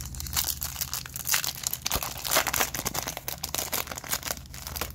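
Foil wrapper of a Topps Chrome baseball card pack being torn open and crinkled by hand: a dense, continuous run of crackles.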